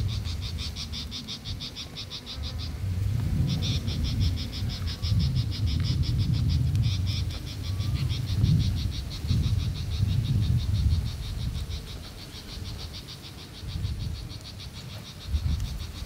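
Wind gusting across the microphone, heard as an uneven low rumble that swells and fades, under a high, rapidly pulsed trill of about eight pulses a second that runs in long bouts with a short break about three seconds in.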